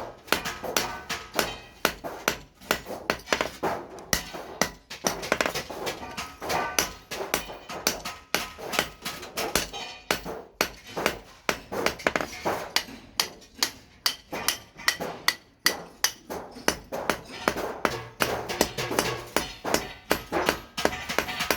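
Hammer blows on hot steel at the anvil while forging an axe head: a long run of sharp, ringing strikes, about three to four a second, with a few short pauses.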